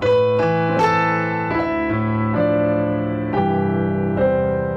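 Piano sound played on a keyboard: a slow melody of single notes over held chords, with a new melody note about every half second to a second and the chord beneath changing every second or so.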